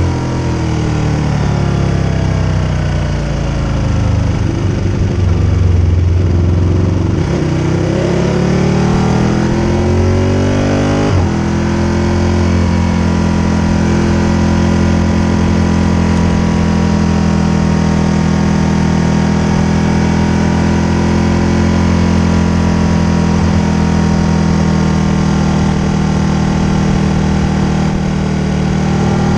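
Motorcycle engine heard from on board while riding, with wind rush over the bike. The engine note rises and falls for about the first ten seconds, then settles into a steady cruise.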